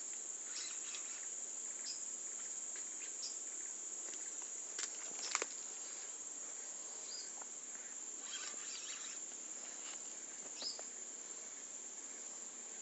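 Steady high-pitched drone of insects. Faint scattered ticks run through it, and two sharp clicks come about five seconds in.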